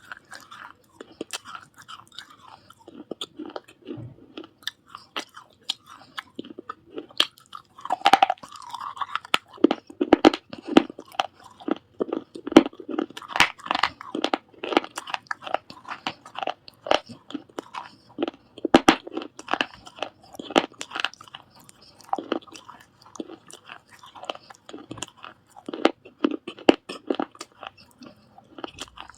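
Pieces of baked clay from a surahi water pot being bitten and chewed: a long run of dry, close crunches and crackles, thickest in the middle.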